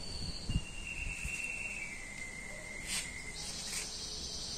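Faint, steady, high-pitched insect trills that shift between a few pitches, with a soft knock about half a second in and a short click near three seconds.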